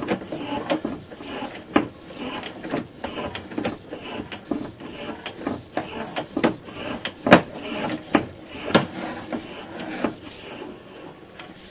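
Sewer inspection camera's push cable being fed through the cleanout, making irregular clicks, knocks and rubbing, with one sharper knock about seven seconds in.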